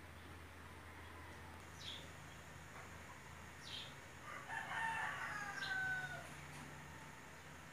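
A rooster crowing once, a drawn-out call of about two seconds starting a little after the four-second mark, with a few short high bird chirps before and during it.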